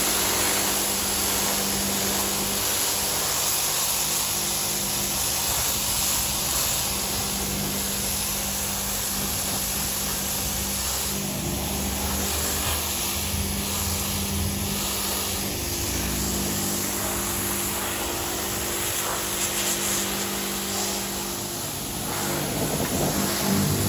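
AVA P80 electric pressure washer running steadily, its pump humming under the hiss of the high-pressure jet as it blasts moss and dirt off a car's window seals, glass and door panel.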